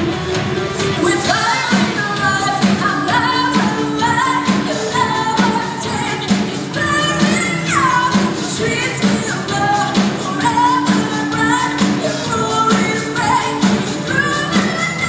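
Live worship band playing a pop-rock song: a sung vocal line over acoustic and electric guitars and a steady drum beat. It is heard from the audience in a large hall.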